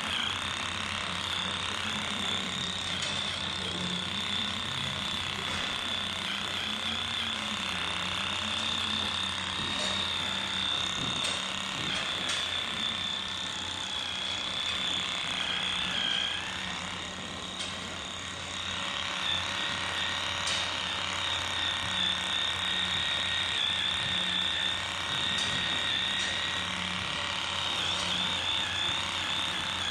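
Corded electric clippers buzzing steadily with a high motor whine as they trim the hair of a cow's tail switch. The buzz drops briefly about two-thirds of the way through, then picks up again.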